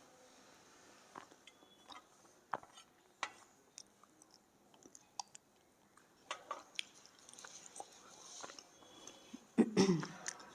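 Black slate being bitten and chewed close to the mouth: scattered sharp crunches and crackles, with a louder, denser burst of crunching near the end.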